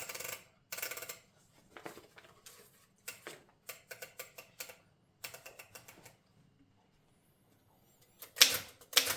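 1924 Underwood No. 5 manual typewriter being loaded with paper and worked: runs of quick mechanical clicks and ratcheting, then a few loud sharp strikes near the end.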